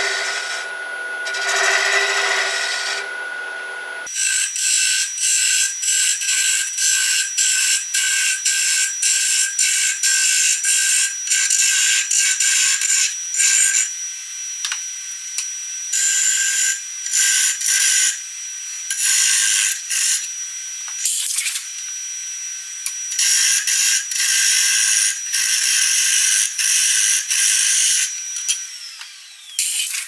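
Hollowing tool with a round cutter scraping out the inside of a spinning cedar blank on a wood lathe, in short repeated bursts of cutting. A steady high whine runs under it and drops in pitch near the end as the lathe slows.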